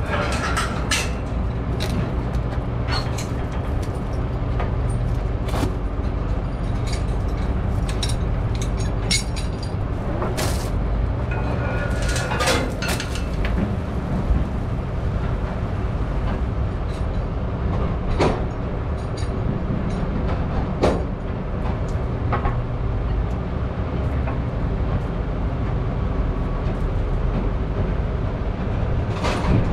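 Heavy diesel log truck idling while parked, a steady low rumble, with scattered sharp knocks and clanks every few seconds.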